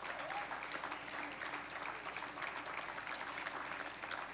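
Light applause from a small audience: scattered hand clapping that eases slightly near the end.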